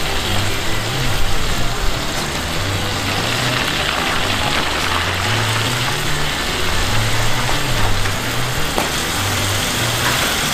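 Wood-gas camp stove burning with a steady roar and hiss under a hanging pan of cooking meat, with background music carrying a slow bass line beneath it.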